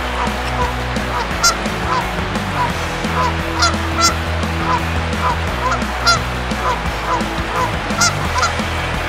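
Instrumental background music: sustained bass notes that change in steps under quick, short high notes.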